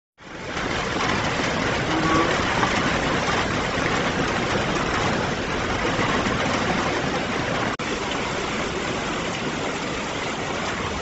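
Heavy rain falling steadily, an even, dense hiss with a momentary dropout about eight seconds in.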